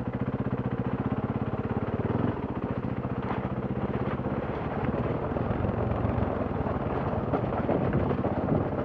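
Enduro motorcycle engine idling steadily with the bike stopped. About two seconds in the engine note changes, and the bike rolls off at low revs down a steep, loose rocky trail, with stones clicking and crunching under the tyres.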